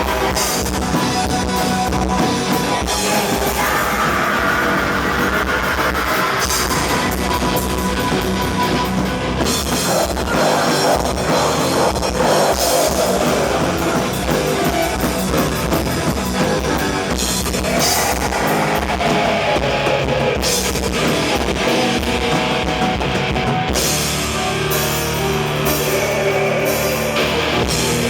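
Black metal band playing live: drum kit and guitar with loud, dense drumming throughout, turning to low sustained held notes near the end.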